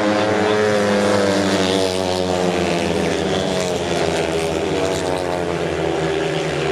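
Several sand-track racing motorcycles, single-cylinder methanol-burning engines, running hard as they race round the bend. Their engine notes overlap and drift slowly up and down in pitch.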